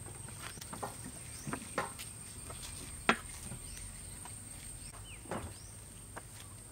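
Steady high-pitched insect drone, with scattered knocks and clicks, the loudest about three seconds in.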